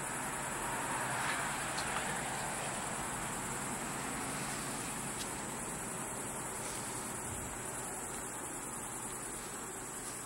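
Crickets chirring in a steady high-pitched band, over a low rushing background noise that swells slightly about a second in.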